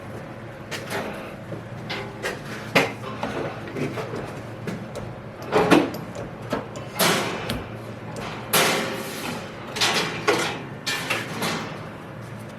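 Irregular knocks, clunks and scraping of workshop parts being handled while a drive belt is tried on pulley wheels. The loudest clunk comes about six seconds in, with a cluster of rustling knocks near the end.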